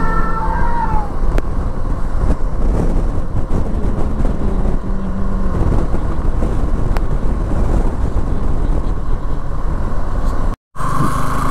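Vehicle running at road speed: a steady low rumble of engine, tyres and wind. It drops out for a moment near the end.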